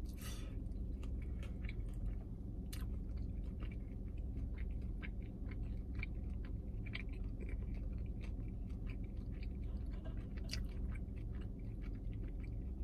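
A person biting into and chewing a sauced, double-fried chicken wing close to the microphone. There is a sharp bite right at the start, then wet, crunchy chewing clicks throughout, over a steady low hum.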